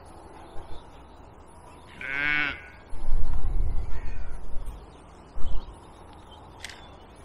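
A single wavering animal call, about half a second long, followed by a couple of seconds of louder low rumbling and a short thud.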